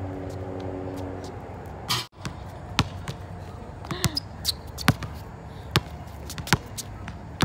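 A basketball dribbled on a concrete court, with sharp bounces about once a second through the second half.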